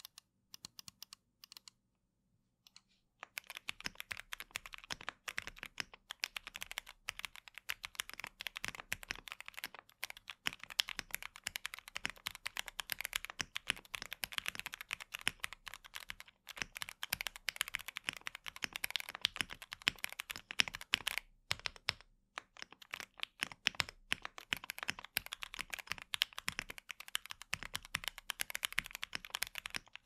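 Typing sound test on a QK65v2 Classic 65% mechanical keyboard: gasket-mounted PCB, lubed Gateron G Pro Yellow linear switches, Shenpo PBT Cherry-profile keycaps. A few scattered keystrokes, then fast, continuous typing from about three seconds in, with a short pause about two-thirds of the way through.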